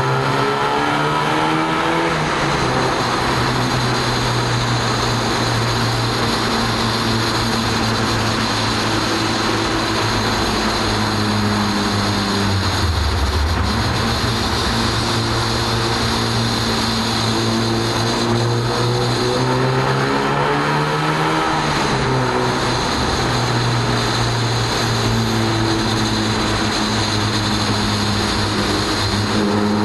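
Car engine running hard, heard from inside the car in a road tunnel. Its pitch climbs in the first couple of seconds and holds, drops about 13 seconds in, then climbs again about 18 seconds in and holds high.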